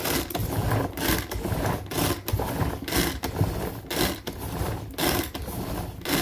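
Tupperware Power Chef pull-cord mixer being pulled over and over, about two pulls a second, each pull a whirring rattle of its gears and ratchet. It is working through thick chocolate cake batter, which makes the cord harder to pull.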